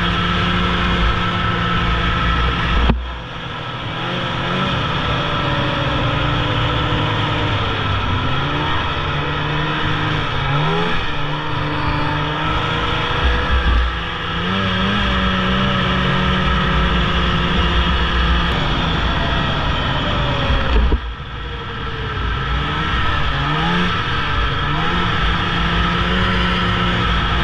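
Snowmobile engine running under varying throttle while riding, its pitch rising and falling. The throttle is chopped suddenly about 3 seconds in and again about 21 seconds in, and the engine then pulls back up.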